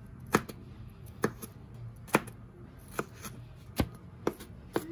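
Kitchen knife mincing garlic on a plastic cutting board: about seven sharp knocks of the blade on the board, irregularly spaced, some with lighter taps between them.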